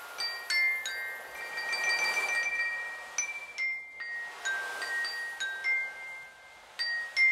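A melody of clear, bell-like notes struck on a tableware 'xylophone' of ceramic cups and bowls, each note ringing on after the hit. A soft hiss swells under the notes twice.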